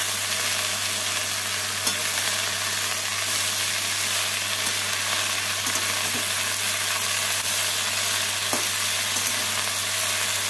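Chopped bottle gourd leaves (lau shak) sizzling steadily in hot mustard oil in a metal kadai as a flat spatula stirs and tosses them, with a few light clicks of the spatula against the pan. A steady low hum runs underneath.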